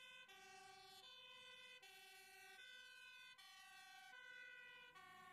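Fire engine's two-tone siren, very faint, alternating between a higher and a lower note about every three-quarters of a second.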